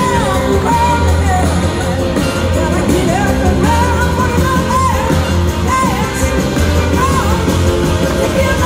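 Rock band playing live, loud, with a melody line that slides and bends in pitch above a steady, heavy bass and drums, heard from within the audience in a concert hall.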